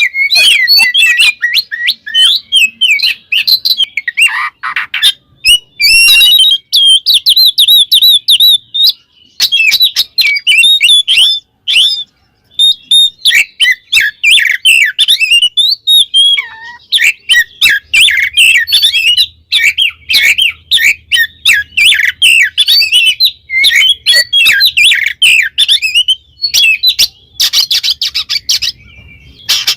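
Oriental magpie-robin (kacer) singing a loud, full 'ngeplong' song: a fast, varied run of whistles mixed with harsh, clicking notes that goes on almost without a pause. It is a challenge song that calls out rivals and provokes other males.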